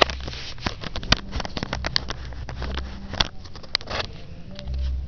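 Handling noise of a phone being swung about in the hand: rapid clicks, rubbing and crackle on the microphone over a low rumble. The crackling stops about four seconds in.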